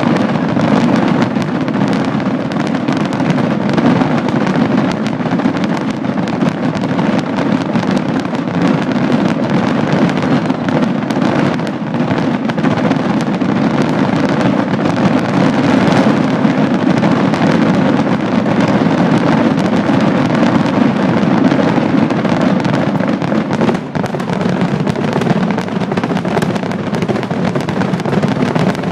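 Fireworks finale barrage: a continuous, dense volley of bursts and crackling firecrackers, so many explosions a second that they merge into one loud, unbroken din. The din eases briefly a little before the end.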